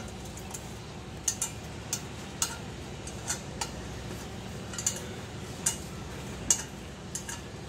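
About a dozen sharp little metallic clicks and ticks at irregular intervals from hands working a thin wire against a three-phase electric motor's metal casing, over a steady low hum.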